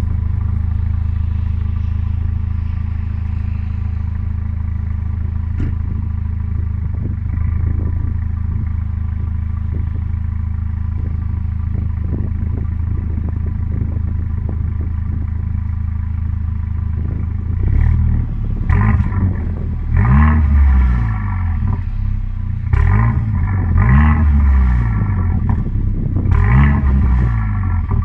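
Mercedes CLA45 AMG's turbocharged 2.0-litre four-cylinder idling steadily, then, about two-thirds of the way in, revved up and down in several short blips. Crackles from the performance exhaust sound as the revs drop.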